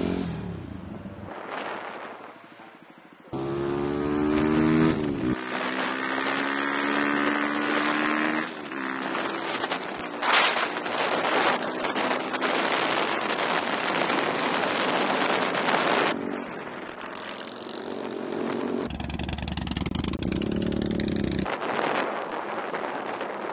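Motorcycle engines revving and running in short stretches that start and stop abruptly. A loud, rough stretch of exhaust noise lasts several seconds in the middle.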